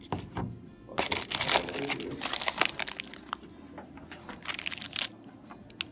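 Plastic snack wrappers crinkling as they are handled, in two long runs of crackling with a short tick near the end.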